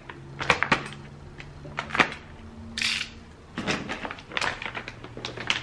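A white packet handled and opened by hand: rustling and crinkling with scattered sharp clicks, a short hissing rasp about three seconds in, then a busier spell of crinkling.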